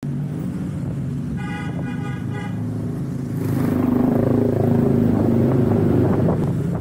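Honda PCX 150 scooter's single-cylinder engine running at low riding speed, with a vehicle horn tooting once for about a second, about a second and a half in. About three and a half seconds in the sound swells louder for some three seconds as an oncoming motorbike passes close by.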